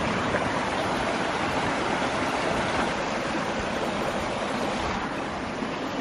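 Rocky mountain stream rushing over stones, a steady rushing noise that fades slightly toward the end.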